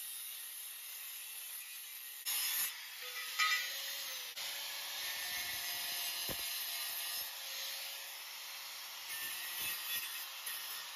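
Handheld angle grinder working steel angle iron: a steady high hiss over the motor's faint whine, with a few brief louder flares. First it shortens a steel handle, then, after an abrupt change about four seconds in, it grinds the steel frame clean for welding.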